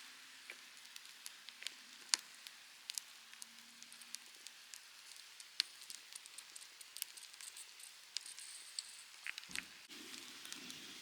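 Wood campfire crackling, with irregular sharp pops and snaps over a soft hiss. A dull thud comes near the end, after which a fuller rushing noise rises.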